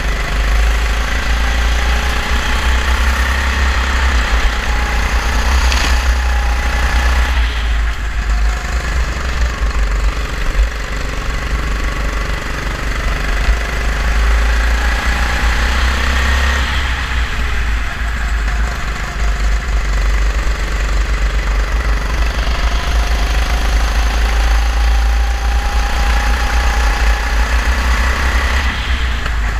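Kart engine heard on board during a lap, its pitch climbing on the straights and falling away briefly about 7, 17 and 29 seconds in as the throttle is lifted for corners. A heavy low rumble lies under it.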